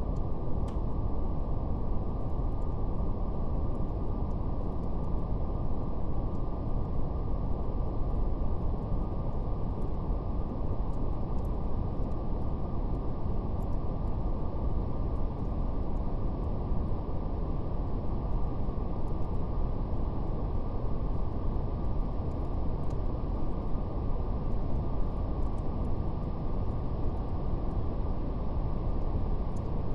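Steady brown noise: a deep, even rumbling hiss with nothing above the low-middle range, with a faint crackle of fire ticking sparsely over it.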